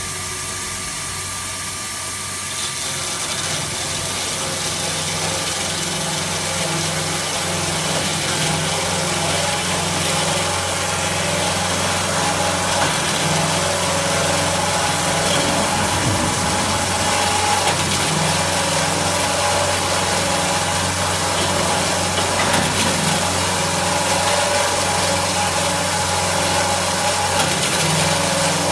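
IMET KS-1202 NC band saw machine running with a steady mechanical hum, its noise swelling over the first few seconds and then holding steady.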